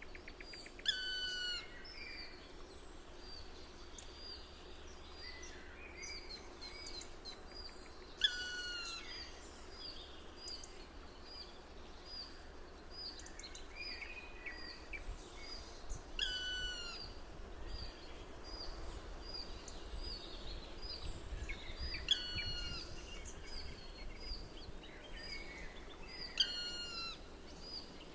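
Forest birdsong: one bird repeats a short, loud song phrase five times, every five to eight seconds, while another gives a steady run of high chip notes about twice a second.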